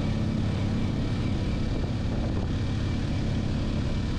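Motorcycle engine running at a steady cruise while riding, with wind noise over it.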